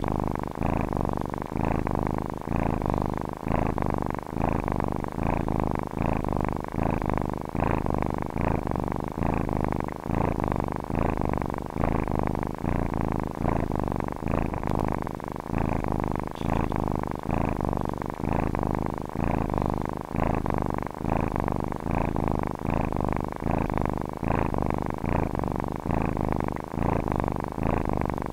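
Domestic cat purring steadily, the low rumble pulsing evenly as it swells and fades.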